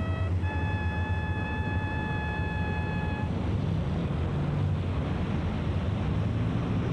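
A bugle sounds the tail of a lower note, then a higher note held for nearly three seconds, cut off cleanly. A steady low rumble runs underneath and carries on after the note stops.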